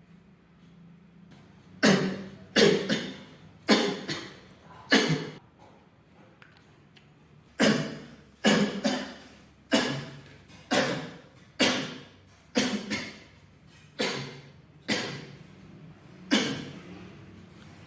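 A person coughing repeatedly in two bouts of short, sharp coughs: about four in the first few seconds, then after a short pause about ten more, spaced roughly a second apart.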